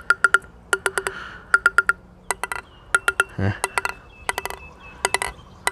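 Plastic table tennis ball tapped and bounced in quick bursts of three or four against the face of a DHS Hurricane Long 5 Provincial blade. Each tap rings out at the blade's own few fixed pitches, sounding its vibration.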